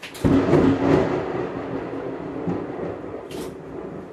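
Thunder from a close lightning strike: a sudden loud crack that rolls into a heavy rumble and slowly fades. A little over three seconds in, a camera's shutter clicks once.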